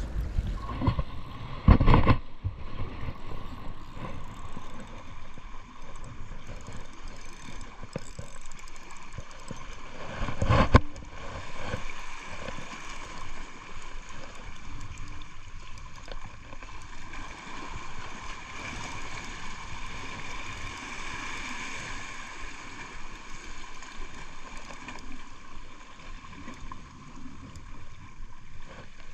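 Sea water washing and gurgling among breakwater rocks while a spinning reel is wound, retrieving a squid jig. Two brief loud bursts come about two seconds and ten seconds in.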